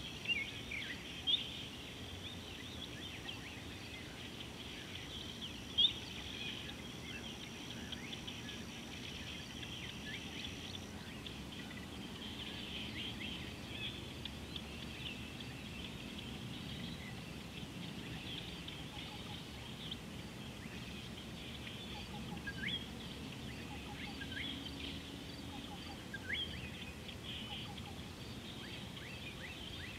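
Outdoor bird chorus: many small birds chirping and calling over one another without a break, with a few louder sharp calls, the loudest about six seconds in. A thin steady high tone stops about a third of the way through.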